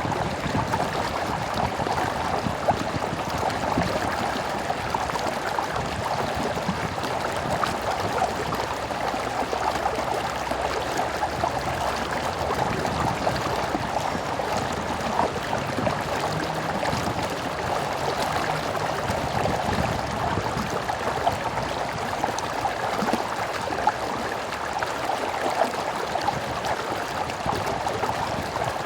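A stream flowing steadily over rocks, an even rushing and gurgling of water.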